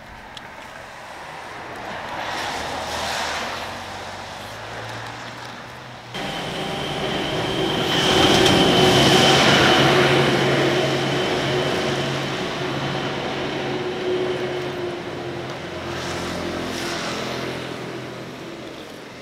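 Traffic going by on a rain-wet road: tyres hissing as vehicles pass in three swells, the loudest about eight to ten seconds in as a heavy vehicle with a steady engine hum and a high whine goes past.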